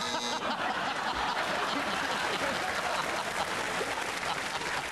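Studio audience applauding and laughing.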